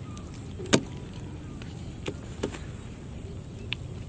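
Live small fish flapping in a heap in a container: a few sharp wet slaps and taps, the loudest about a second in and two lighter ones around the middle, over a steady background hiss.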